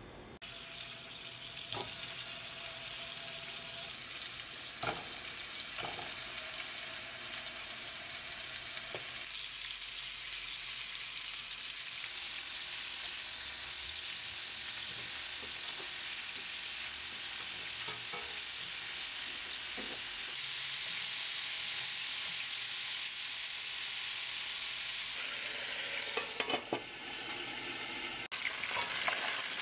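Ground-beef meatballs frying in hot vegetable oil in a nonstick pan: a steady sizzle, with occasional clicks and scrapes from tongs turning them.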